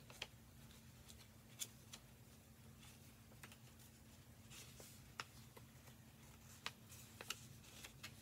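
Faint, scattered small clicks and light rustles of hands handling packaging during an unboxing, over a low steady hum.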